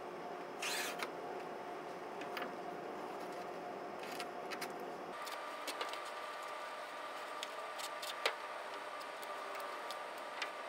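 Hands working pool-table cloth with a utility knife and scissors: a short rustle about a second in and scattered small clicks and taps, over a steady hum that shifts to a higher tone about five seconds in.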